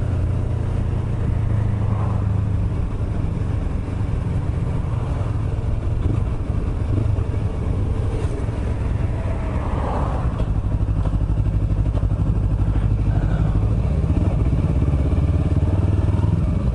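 Yamaha YZF-R25's parallel-twin engine running at low, steady road speed. It pulses more evenly and a little louder near the end as the bike comes to a stop.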